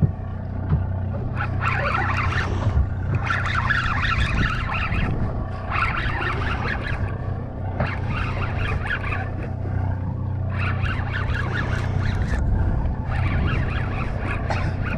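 Party boat's engine running with a steady low hum. Patches of higher, rushing noise come and go over it every second or two.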